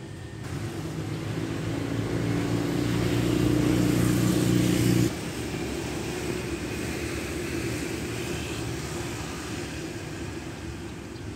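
An engine's hum growing louder over about four seconds, cut off abruptly about five seconds in, followed by the steady noise of street traffic.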